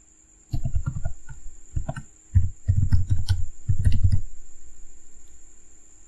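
Keystrokes on a computer keyboard, typed in quick bursts that start about half a second in and stop a little after four seconds, entering an email address. A faint steady high-pitched whine and a low hum run underneath.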